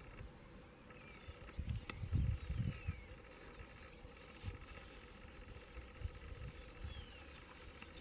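A flock of starlings in flight calling overhead: scattered thin, falling whistles and chatter. A few low rumbles come about two seconds in.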